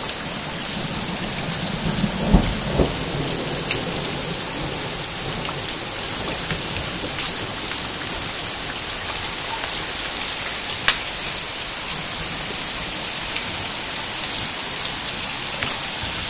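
Torrential downpour: a dense, steady hiss of heavy rain pouring onto the ground and foliage, with a few sharp taps from close drops, the loudest a low thump about two seconds in.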